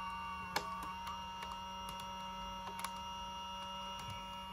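A steady electrical hum made of several held tones, with a few faint clicks. The hum cuts off suddenly just after the end.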